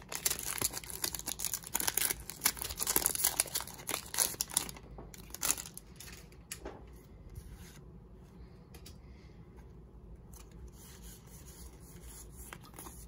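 Foil booster-pack wrapper crinkling and being torn open by hand, dense and crackly for about the first five seconds. It then drops to faint rustling with a few light clicks.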